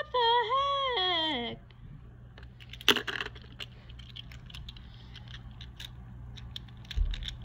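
Small plastic Beyblade micro tops being picked up and handled: one sharp clack about three seconds in, then scattered light clicks and a low thump near the end. A drawn-out vocal exclamation with a wavering, falling pitch fills the first second and a half.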